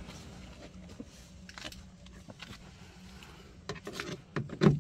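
Scattered faint clicks and knocks from the plastic door trim panel and a screwdriver being handled while the panel's screws are tightened. A cluster of sharper knocks comes near the end, with one louder thump.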